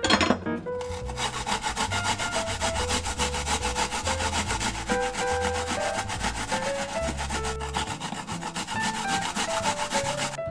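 A vegetable being grated on a kitchen grater: quick, even rasping strokes without a break, over quiet background music.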